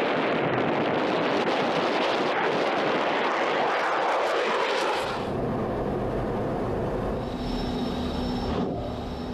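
Fighter jet engines during a low, fast pass: a loud, dense jet noise whose pitch slides down as the jet goes by. About five seconds in it changes abruptly to a steadier, lower rumble of engine and airflow heard from inside the cockpit in flight, with a faint steady whine.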